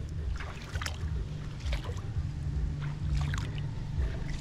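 Scattered wet splashes and squelches from shallow pond water and mud, over a continuous low rumble.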